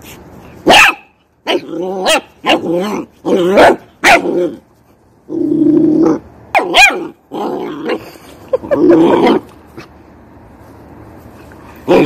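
A puppy barking and growling at a dandelion seed head: a run of short, sharp barks with a couple of longer growls between them, a lull of a few seconds near the end, then one more burst.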